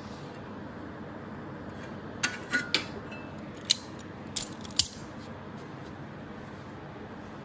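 A locking C-clamp is released and taken off a steel lower control arm, giving a handful of sharp metallic clicks and clanks in two clusters, around two and four seconds in. A steady background hiss runs underneath.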